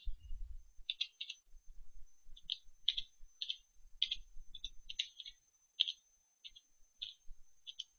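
Slow, uneven typing on a computer keyboard: faint single keystroke clicks, about two or three a second, with short pauses between them.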